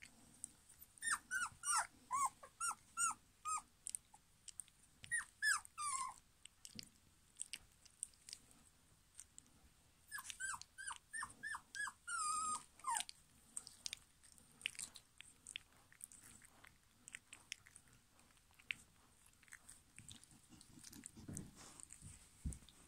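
German pinscher puppies play-fighting, giving short high-pitched yelps that fall in pitch, in quick runs of several: about a second in, again around five seconds and again around ten to thirteen seconds. Soft mouthing and chewing sounds come between the runs.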